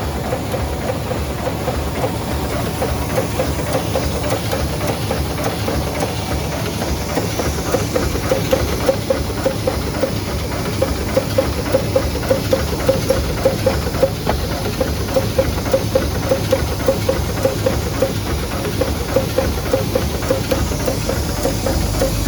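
Aster 2000 computer-programmed sewing machine running, a steady mechanical hum with a regular clack of about three stitches a second that grows louder from about eight seconds in.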